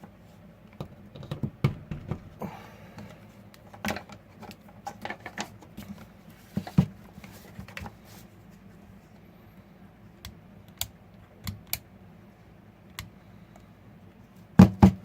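Scattered clicks and knocks of hands working a Mastercraft plunge router and its power switch, with a sharper cluster of clicks near the end. No motor starts: the router is dead, which the owner traces to a fouled power switch and worn brushes.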